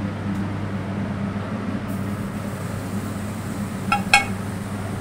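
Steady low hum of kitchen ventilation. About four seconds in come two sharp, ringing metallic clinks: metal tongs striking the char-grill grate as a lamb loin is laid on to char.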